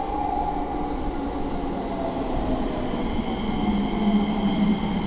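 Keikyu 1000 series electric commuter train pulling into the platform and braking, its motor whine falling slowly in pitch as it slows. About three seconds in, a set of high steady whine tones joins it.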